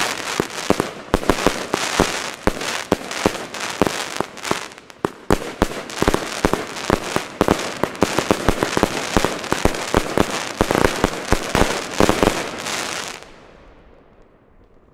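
Katan Special 1 firework battery, a 100-shot 25 mm cake, firing a rapid run of shots, with shells bursting into gold glitter and crackle. About two seconds before the end the bangs stop and the crackle fades away.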